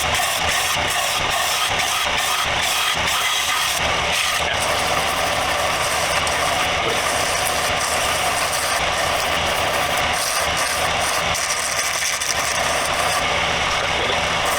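Combination belt-and-disc sander running steadily while a wooden screwdriver handle is pressed against it to sand its profile.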